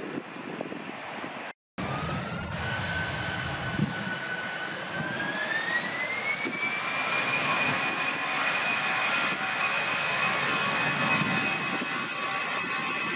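Airbus A319 jet engines spooling up for takeoff: a whine rises in pitch about five seconds in and then holds steady over the engines' rumble. The sound cuts out briefly near the start.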